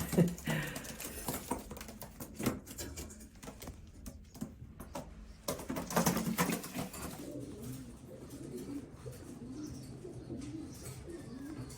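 Racing pigeons cooing, low warbling coos that rise and fall, mostly from about six seconds in. A few light knocks come before the cooing.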